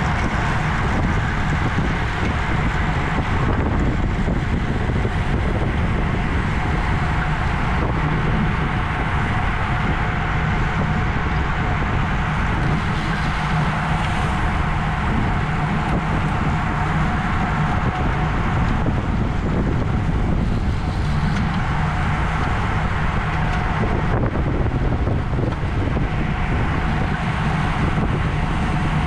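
Steady wind rush over the microphone of a camera riding on a racing bicycle at race speed, a constant low buffeting with no breaks.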